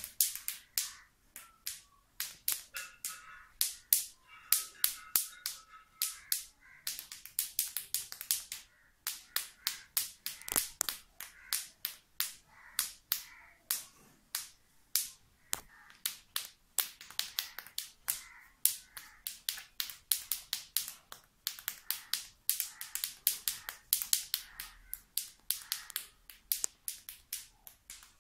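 Fast, rhythmic finger snapping and clicking by hand alone, imitating the beat of a tasha drum. The sharp clicks come in quick runs with short breaks between them.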